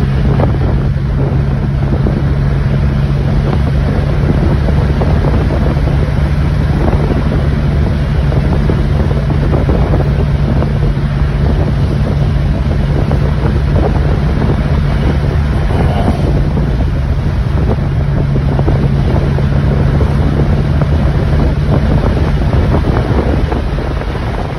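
Porsche sports car cruising at a steady speed: an even engine drone inside the cabin, with wind rushing over the microphone.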